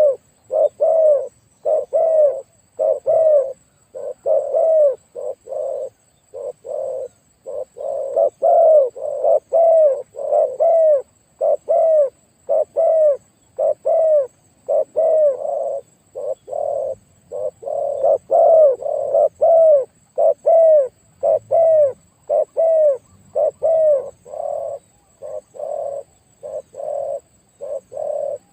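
Spotted dove cooing over and over in a big, deep voice. It gives short coos about two a second, with brief pauses now and then.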